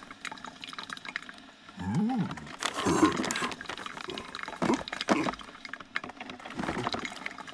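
A string of short cartoon sound effects with a liquid, bubbly character, including a brief pitched sound that rises and falls about two seconds in.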